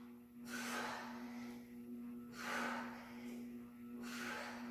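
A woman breathing hard from exertion while holding a plank with arm reaches, three breaths about two seconds apart, over a steady low hum.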